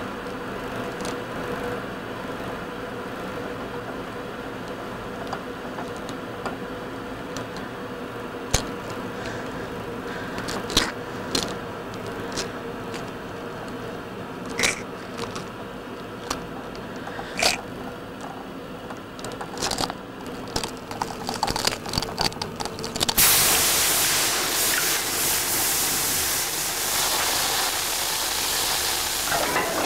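A pot of boiling water over a steady hum, broken by sharp cracks that come more and more often: an egg's shell cracking as it boils. About three-quarters of the way in, a loud hiss takes over: milk boiling over and sizzling on a hot electric hotplate.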